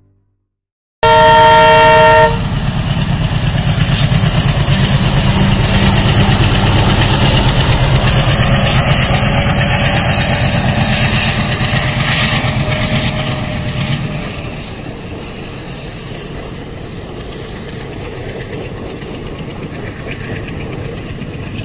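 Indian Railways diesel locomotive sounding a short horn blast about a second in, then its engine throbbing loudly as it passes. The sound drops after about 14 s to the quieter rumble and clickety-clack of the coaches rolling by.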